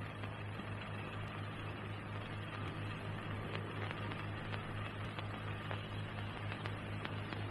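Steady low electrical hum with hiss and scattered faint clicks: background noise of an old film soundtrack transfer during a pause with no dialogue or music.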